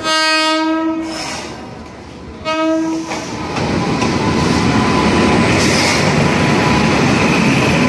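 Indian Railways locomotive horn sounding a long blast and then a short one, followed by the steady rolling noise of a train moving alongside the platform, growing louder and then holding steady.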